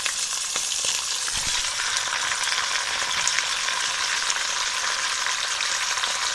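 Raw mutton pieces sizzling as they go into hot oil with browned onions: a steady frying hiss with many small crackles, and a low thump about a second and a half in.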